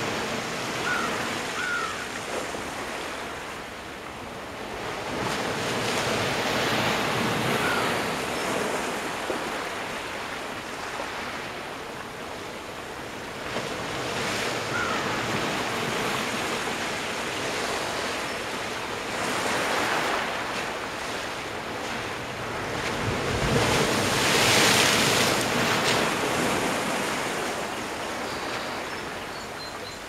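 Atlantic Ocean surf breaking and washing among shoreline rocks, rising and falling in slow surges every few seconds, the loudest surge about three-quarters of the way through.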